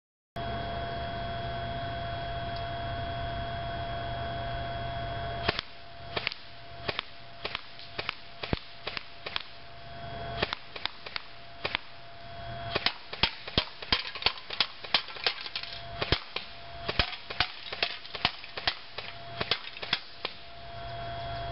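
Airsoft G4 A5 DMR firing single shots in semi-auto, a long string of sharp cracks at irregular spacing that comes faster, about two a second, in the second half. Before the shooting starts there are about five seconds of steady hum with a faint whine.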